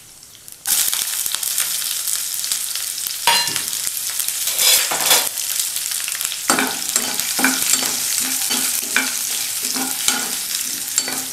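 Green chillies and ginger hitting hot ghee in a nonstick kadai, starting to sizzle suddenly about a second in. About halfway through, a spoon starts stirring and scraping the pan about twice a second over the sizzle.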